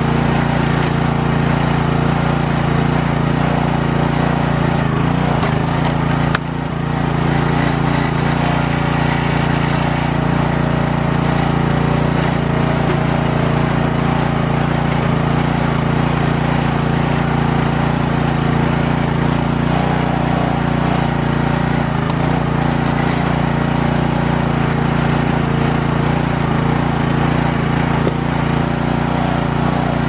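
Small gasoline engine of a log splitter running steadily at a constant speed. There is a sharp click with a brief dip in level about six seconds in.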